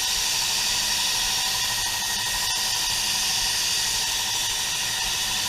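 Steady hiss of air from an Iwata LS400 spray gun with a 1.4 tip, held open while spraying wet coats of clear coat.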